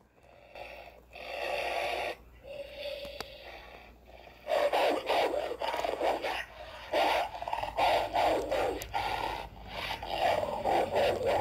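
Growling and snarling imitating wolves and dogs fighting, in rough, irregular bursts, faint at first and coming thick and fast from about four and a half seconds in.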